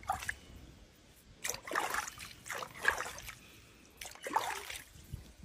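Swimming-pool water splashing and trickling around a wading jaguar, in about four short bursts.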